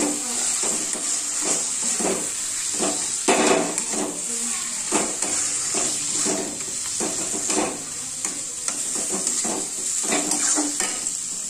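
Chicken with onions and spice paste frying in oil in a metal kadai, sizzling steadily, while a metal spatula scrapes and knocks against the pan in repeated stirring strokes.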